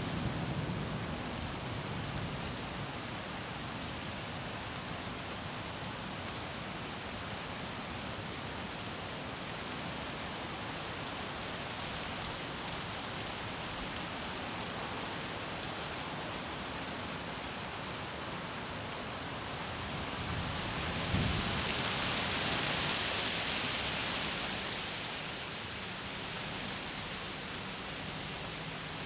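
Steady rain falling on leafy trees, with wind moving the branches. The hiss swells for a few seconds about two-thirds of the way in, with a brief low thump as it begins.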